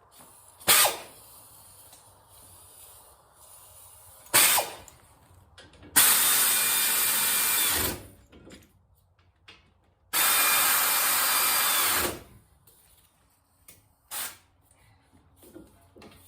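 A power tool runs in two bursts of about two seconds each, starting and stopping abruptly, with sharp metallic knocks before them and a smaller one after.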